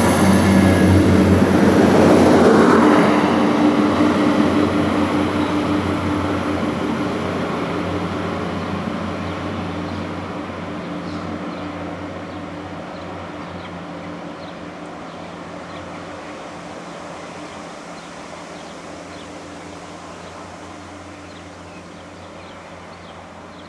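Diesel train passing close by, loudest a couple of seconds in, then fading steadily as it pulls away, its low engine note lingering as it recedes.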